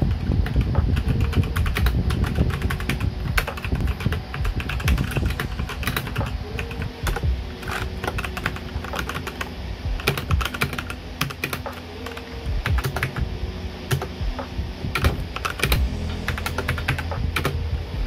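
Fast continuous typing on a Fantech Maxcore MK852 mechanical keyboard with Outemu Brown tactile switches and its stock keycaps: a steady run of quick key clacks.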